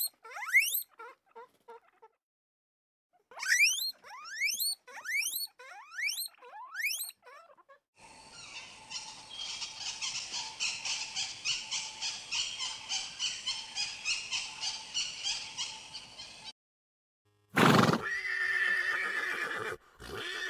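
Guinea pigs squeaking in a run of quick upward-sliding wheeks. Then helmeted guineafowl give a rapid, even, rattling chatter for several seconds. Near the end a horse lets out a loud neigh that wavers in pitch.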